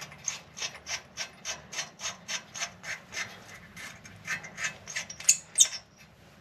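Ratchet wrench clicking in short, even strokes, about three or four a second, working a bolt loose on a motorcycle's stock exhaust, with one louder scrape near the end.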